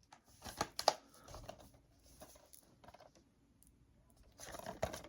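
Packaging being handled during an unboxing: a few short clicks and rustles a little under a second in, then more rustling near the end.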